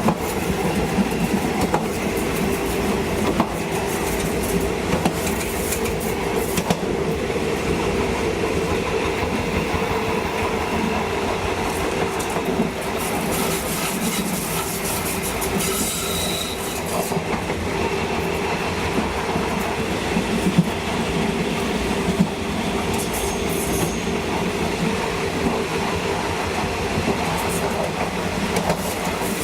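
State Railway of Thailand passenger train running on the track: a steady running noise with a low hum and scattered clicks from the wheels on the rails.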